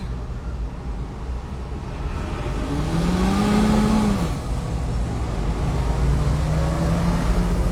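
Car engine and road rumble. The engine pitch climbs from about three seconds in, drops about a second later, then holds steady near the end.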